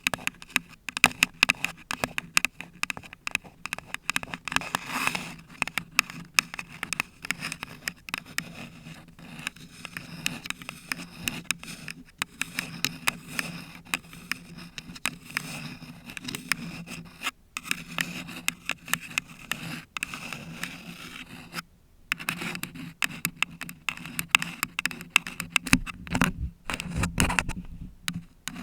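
Long false nails scratching a paper cup and the bare Blue Yeti microphone up close: rapid, irregular scraping strokes packed with fine clicks, with a brief pause about three quarters of the way through.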